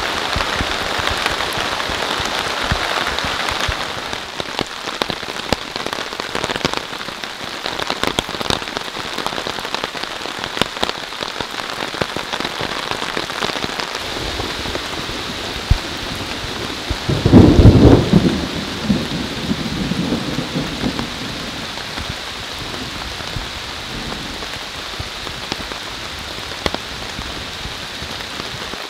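Heavy rain falling steadily on a tarp shelter and the forest floor, with many dripping drops. About 17 seconds in, a loud clap of thunder, rumbling on for a few seconds before fading.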